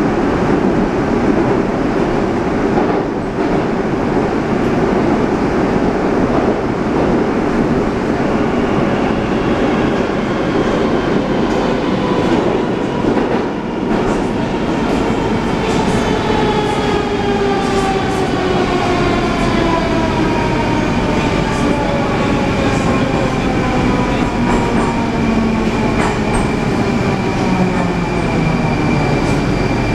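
Rusich 81-740/741 metro train heard from inside the car: the steady rumble of running through the tunnel. About a third of the way in, the traction drive's whine starts in several tones that slowly fall in pitch as the train brakes into a station.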